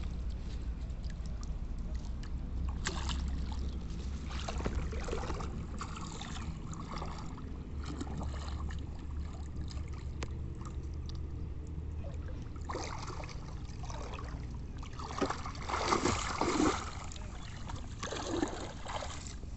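Water splashing and sloshing as a person wades through chest-deep muddy pond water, with a steady low rumble underneath; the splashes come in irregular bursts and are loudest near the end.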